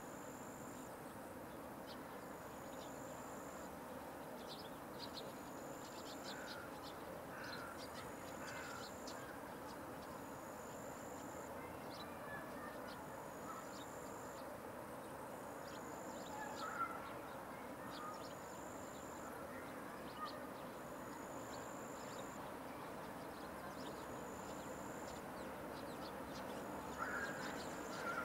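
An insect stridulating: a high-pitched buzz about a second long, repeated every two seconds or so, over steady background noise. A few short bird calls come in at intervals.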